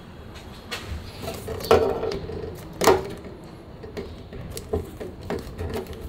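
A few scattered knocks and clatters of objects being handled, with two louder knocks about two and three seconds in.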